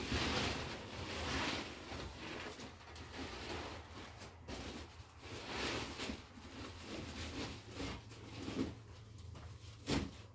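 Rustling and swishing of a large woven plastic sheet as it is handled, folded and rolled up on a concrete floor, with one sharp knock near the end.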